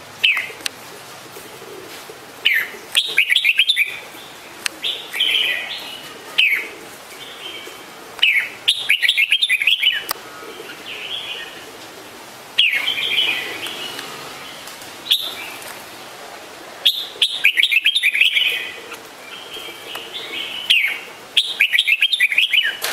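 Red-whiskered bulbul calling: short bright chirpy phrases every few seconds, several of them quick runs of notes.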